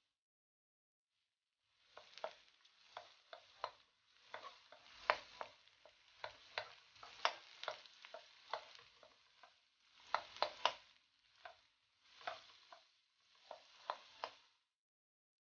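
Chopped onion frying in oil in a metal wok, sizzling, while a wooden spatula stirs it with many sharp taps and scrapes against the pan. Starts about two seconds in, comes and goes with the strokes, and stops shortly before the end.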